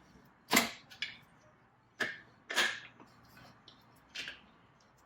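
Metal tools and parts clacking as they are handled: five separate sharp knocks over a few seconds, the loudest about half a second in and again about two and a half seconds in.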